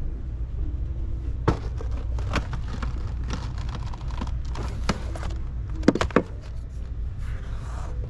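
Steady low vehicle rumble with several sharp clicks and knocks over it, two of them close together about six seconds in.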